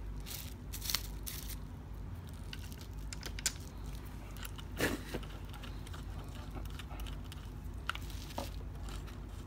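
Scattered sharp clicks and knocks of a Glock-pattern BB pistol and a RONI conversion chassis being handled and fitted together, while the barrel is locked in place, over a steady low hum.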